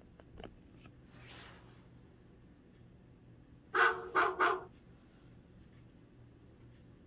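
A dachshund barking three times in quick succession about four seconds in, after a soft rustle.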